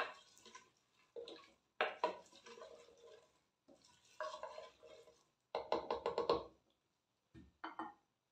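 Wooden spoon stirring sliced onions and garlic frying in oil in a clay pot, in separate scraping strokes against the pot's sides and bottom. A quick run of taps comes about six seconds in, and one last short scrape near the end.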